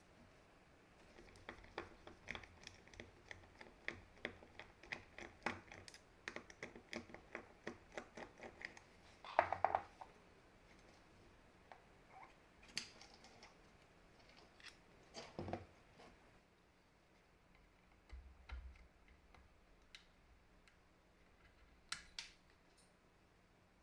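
Small plastic and metal parts of a disassembled impact driver clicking and tapping as they are handled: a quick run of light clicks for the first several seconds, a louder clatter near ten seconds in, another about fifteen seconds in, and a single sharp click near the end.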